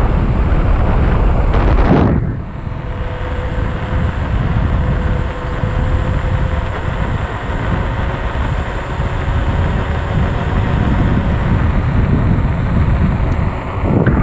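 Wind buffeting the action camera's microphone and tyre rumble on asphalt as an electric unicycle rolls along, a dense steady rush that is loudest in the first two seconds.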